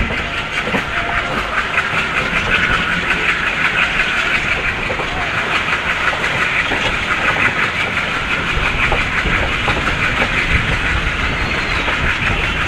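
Diesel-hauled passenger train heard from inside a coach behind an ALCO WDG-3A locomotive as it gathers speed: a steady loud run of wheel-and-rail noise and rattling over a low engine rumble.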